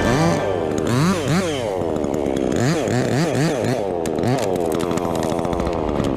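Chainsaw engine revved up and down in quick repeated blips, its pitch rising and falling two or three times a second.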